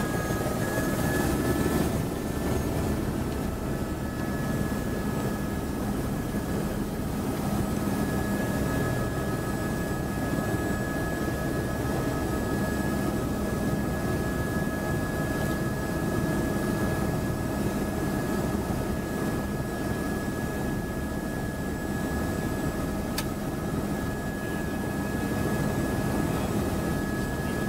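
A helicopter running on the helipad with its rotor turning, heard from inside the cabin. The rotor noise is steady and has a steady high whine over it.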